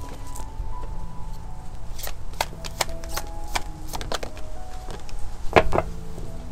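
Deck of oracle cards being shuffled by hand: a run of soft, quick card clicks and flutters, with two louder taps about five and a half seconds in. Soft background music with held tones runs underneath.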